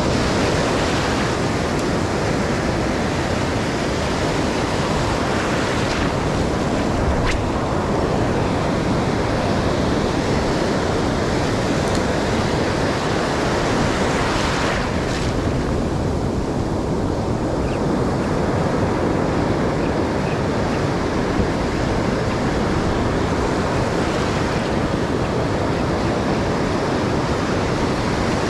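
Ocean surf breaking and washing in over the shallows, a steady loud rush of white water, with wind buffeting the microphone.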